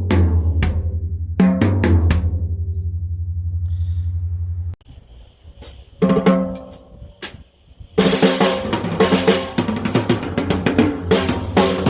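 Drum kit, its kick drum a converted floor tom: single ringing drum strikes over a low boom that cuts off abruptly about five seconds in, then a few more hits, and from about eight seconds in the full kit plays a groove with kick, snare and cymbals.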